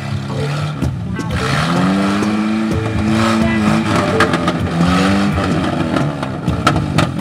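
Land Rover Series IIA's engine revving up and easing off several times as it crawls over deep ruts, with knocks and crunches from the tyres and suspension on the rough dirt.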